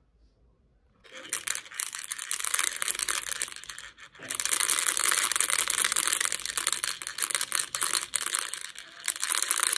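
Crackly rustling of fabric close to the microphone, starting about a second in and running on with a short break about four seconds in.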